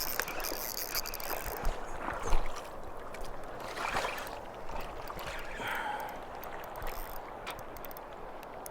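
Shallow river water flowing steadily, with scattered small clicks and a sharp knock about two seconds in.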